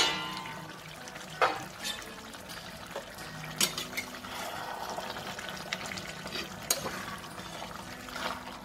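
Metal spatula stirring a watery vegetable curry in an aluminium kadai: wet, liquid stirring with a few clinks and scrapes against the pan. It opens with a ringing metal clang.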